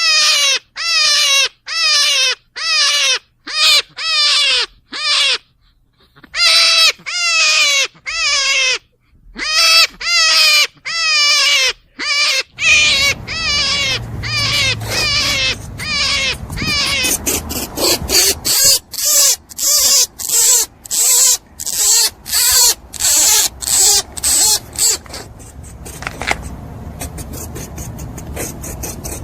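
An animal calling over and over in short calls that slide downward in pitch, about two a second. About halfway through, a noisy background comes in, and the calls turn faster and higher.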